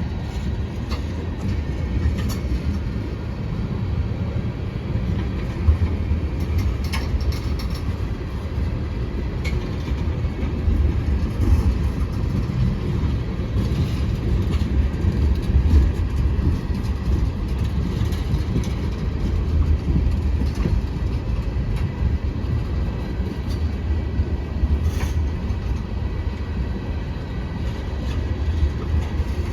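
Freight train cars rolling past: a steady low rumble of steel wheels on rail with scattered clicks and clanks.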